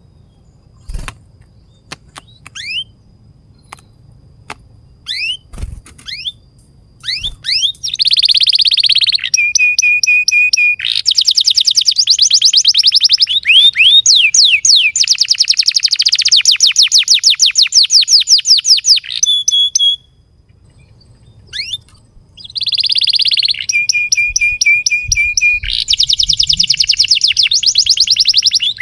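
Domestic canary singing: a few short rising chirps and some light knocks at first, then, from about eight seconds in, long fast song phrases of rapidly repeated notes and steady trills. The song breaks off for about two seconds past the middle, then starts again.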